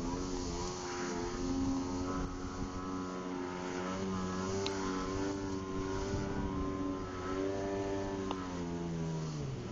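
Jet ski engine running under way, its note wavering up and down, then dropping steeply near the end and settling at a lower pitch.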